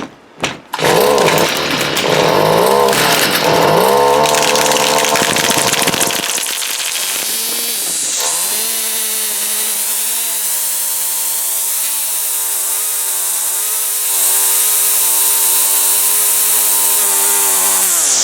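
Two-stroke gas string trimmer engine, freshly cleaned carburetor, catching about a second in and running unevenly with a wavering pitch for several seconds. It settles into a steady high-speed run, gets louder about two-thirds of the way through, and winds down at the very end. It is running on choke, as the owner thinks, on fuel he suspects is not the best.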